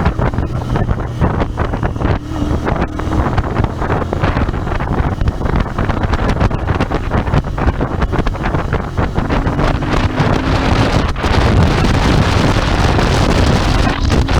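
Royal Enfield Interceptor 650's parallel-twin engine running as the motorcycle rides along, with heavy wind buffeting on the microphone. The wind noise gets louder about eleven seconds in.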